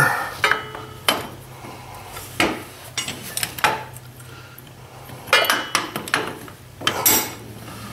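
Steel parts of a Kubota BX24 three-point hitch clinking and knocking as a bracket, its pin and retaining clip are worked into place by hand: about eight separate sharp metal knocks over a low steady hum.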